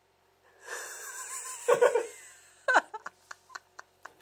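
A woman laughing helplessly in breathy, wheezy gasps, with a few louder voiced bursts of laughter about two seconds in, then a run of short clicks near the end.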